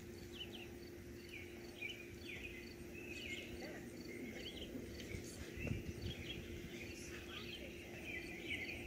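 Wild birds chirping and calling in short rising and falling notes, over a steady low hum.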